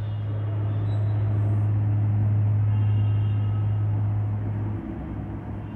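A steady low hum under a rumbling noise that swells for a few seconds and then dies away.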